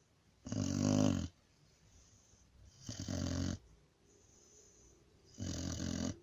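A pit bull-type dog snoring in its sleep: three slow, rasping snores, each lasting under a second, about two and a half seconds apart.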